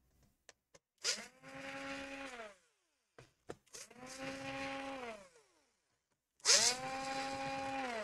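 Small handheld electric screwdriver running in three short bursts of about a second and a half each, its motor whine sliding down in pitch as each burst stops, with a few light clicks in between.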